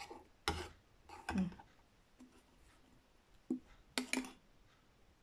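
A spoon knocking and scraping against a ceramic bowl of creamy dressing as it is stirred and the bowl is picked up: a handful of short, scattered clinks and knocks.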